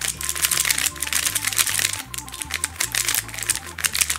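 ShengShou Mr. M magnetic 3x3 speedcube turned rapidly by hand: a dense run of plastic clicks and clacks as the layers snap between the magnets. It is the sound the owner takes to mean a magnet has apparently come loose from its seat.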